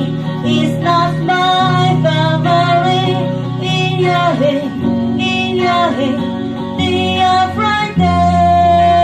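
A song: a high singing voice carrying a melody of held notes, with some slides between pitches, over instrumental backing with a steady bass line.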